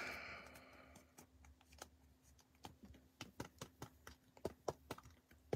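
A swish fades out at the start, followed by faint, irregular clicks and taps from handling rigid plastic top loaders and trading cards. The clicks grow more frequent from about halfway through.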